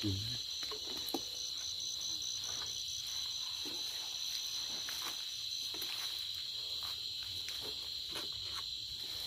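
Crickets and other night insects trilling in a steady high chorus, with a second, higher call pulsing rapidly above it. A few faint clicks and knocks are scattered through.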